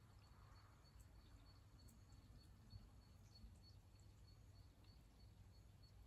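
Near silence: faint rural outdoor ambience in light rain, with a thin high-pitched pulsing call repeating a few times a second over a low rumble.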